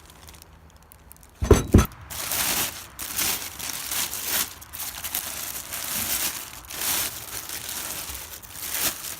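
Two heavy knocks close together about a second and a half in, then plastic packaging crinkling and rustling as it is handled and pulled about.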